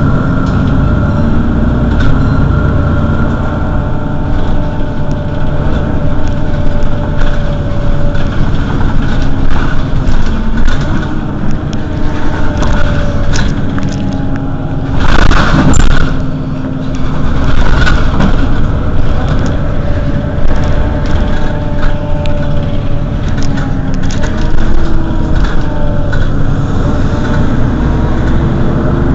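Mercedes-Benz Citaro city bus's engine idling steadily, with pitched tones slowly rising and falling over the running. About halfway through there is a brief loud hiss.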